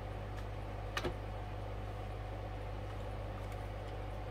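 A steady low hum with a few light clicks, the loudest a quick double click about a second in.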